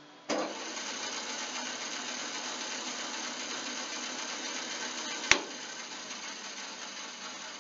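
Bailey WBS-14 14-inch bandsaw switched on: a thump as the motor starts, then the steady, even noise of the saw running with its blade and wheels turning. A sharp click about five seconds in, after which the running noise slowly tapers.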